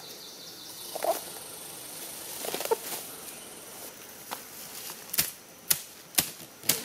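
Machete blade slashing through tall grass and weeds: rustling of stems at first, then four quick chopping swipes about half a second apart near the end.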